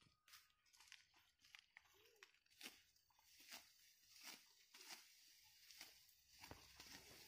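Faint, crisp crunching and tearing of dry, ripe rice stalks being cut by hand with a sickle, in short irregular strokes about two or three a second.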